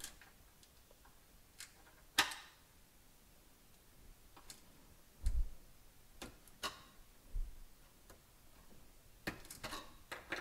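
Scattered small clicks and taps of fingers prying at a plastic wire connector and its locking tab inside an opened PC power supply, with a couple of dull low knocks. The sharpest click comes about two seconds in, and several more come close together near the end.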